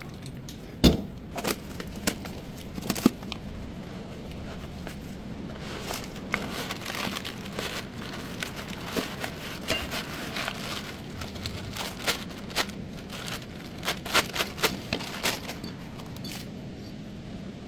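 Irregular clicks and knocks over a steady low hum, the loudest about a second in: hand tools and parts being handled during front CV axle work.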